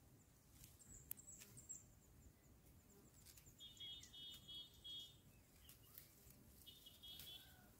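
Faint outdoor quiet with two high, steady buzzing trills, a longer one in the middle and a shorter one near the end, plus a few faint high chirps and light clicks.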